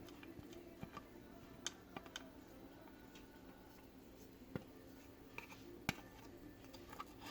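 Faint, scattered light clicks and ticks, a few each second at irregular spacing, with one sharper click near the end, over a low room background.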